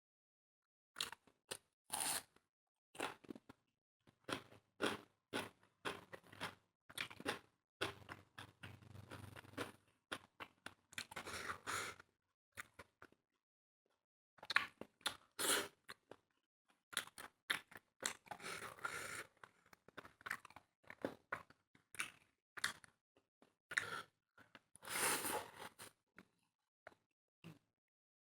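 Close-up eating sounds: irregular chewing and crunchy bites, with a pause of about two seconds midway.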